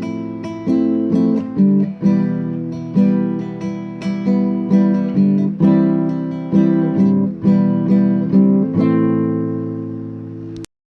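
Acoustic guitar playing a slow, relaxing piece, chords plucked and strummed roughly twice a second and left to ring. It ends on a long sustained chord that cuts off suddenly near the end.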